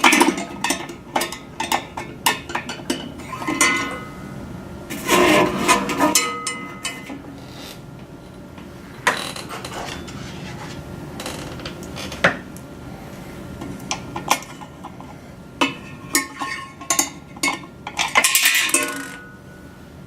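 Screws and washers being driven in with a long-shank Phillips screwdriver while fitting a radio hood: irregular clicks, scrapes and metallic clinks, some of which ring briefly, with two denser bursts of scraping and rattling.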